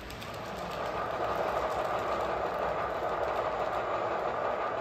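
H0 scale model train running on the layout's track: a steady rolling rumble and whir of wheels on rails, growing over the first second and then holding even.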